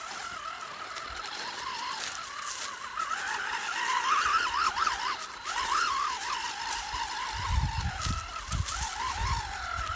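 WLtoys 12428 RC truck driving over sand and dirt: its electric motor whines, rising and falling in pitch as the throttle changes, over a gritty crunch of tyres on the ground. Low thumps come in during the last couple of seconds.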